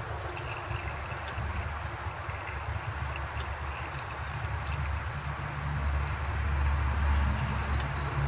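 Gasoline trickling and gurgling through a small plastic funnel into a carburetor's empty float bowl, priming it by hand before the first start. A steady low rumble underlies it, growing louder about six seconds in.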